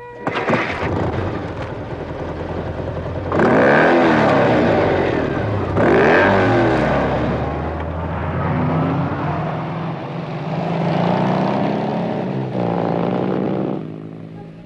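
Car and motorcycle engines running as vehicles drive across a grass field, with two loud surges of revving about three and a half and six seconds in, then steadier engine sound until it drops away near the end.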